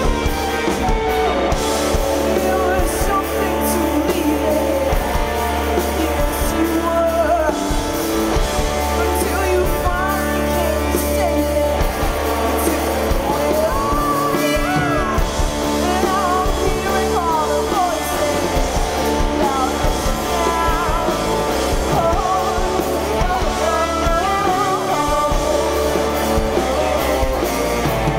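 Live rock band playing a song on electric guitars, bass guitar and drum kit, with lead vocals sung over the top.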